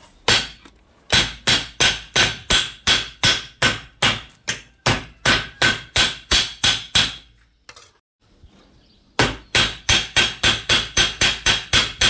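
Hammer beating the edge of a sheet of tin-can metal over a steel bar, folding it up into a tray rim: a steady run of ringing metal-on-metal blows about three a second, a pause of about two seconds, then a faster run of about four a second.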